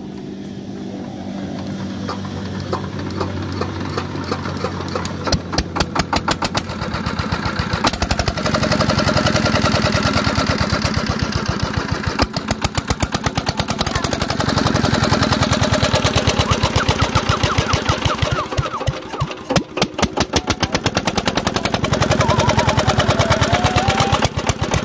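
Single-cylinder diesel engine of a pump set firing with a fast, even chug. The beats come in about five seconds in and get louder a few seconds later, and the speed dips and picks up again a couple of times.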